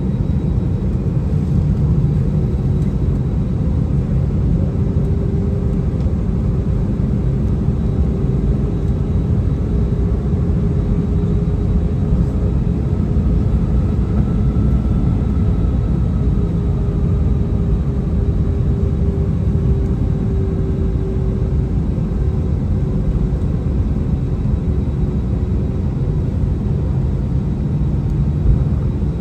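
Steady cabin noise inside an Airbus A319 in flight or on its takeoff run: a loud, even low rumble of the jet engines and airflow, with a faint steady hum over it.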